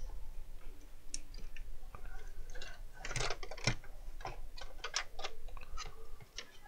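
Clicks and light knocks of a plastic soldering-station case and multimeter probes being handled, with a quick cluster about three seconds in and more near five seconds.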